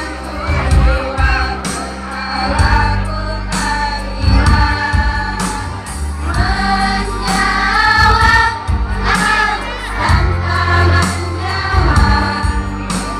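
School choir singing a madrasah anthem in Indonesian, with held notes and vibrato, over instrumental accompaniment with a pulsing low bass.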